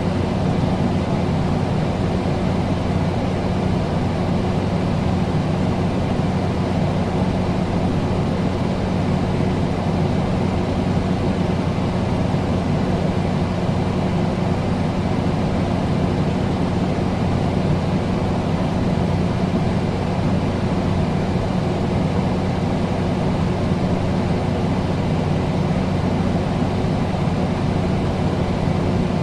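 Air conditioner running: a steady low hum over an even rush of noise.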